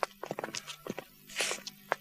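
Scattered footsteps and light knocks as a prisoner is hustled along, with a brief hissing sound about a second and a half in.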